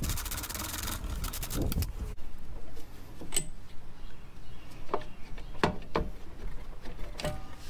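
Ratchet wrench clicking rapidly in two runs over the first two seconds as bolts are worked at a Honda GL1500's rear brake caliper, then a few separate metallic clicks and knocks as the parts are handled.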